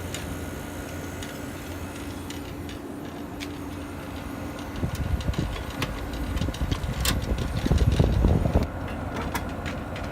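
A 1967 Sears Coldspot window air conditioner running with a steady hum from its pancake compressor and fan motor. About halfway through, a stretch of louder bumping and rustling with a few sharp clicks as its front panel is handled and fitted on.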